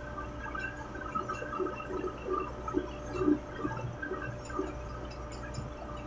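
Steady mechanical hum of running chiller plant equipment, with irregular short metallic clinks over it from hand tools on the parts of a dismantled pump, busiest in the middle of the stretch.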